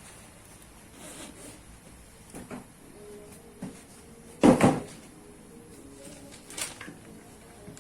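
A new Finwhale gas shock absorber being pumped by hand before fitting: a few irregular knocks and clunks as the rod is stroked, the loudest a double clunk about halfway through.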